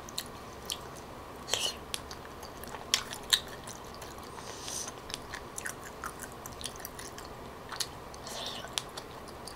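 Close-miked eating sounds: scattered wet clicks and smacks of chewing a mouthful from a tteokbokki pot, with a bite into a round skewered piece near the end.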